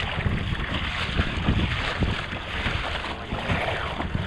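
Strong wind buffeting the microphone in gusts over choppy water around a kayak.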